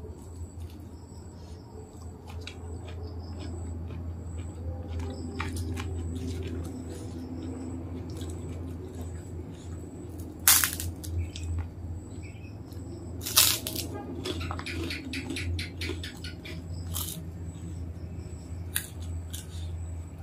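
Close-up eating sounds: soft chewing, then a large kerupuk cracker snapping sharply about halfway through and crunching in a quick run of crackles a few seconds later. A steady low hum lies underneath.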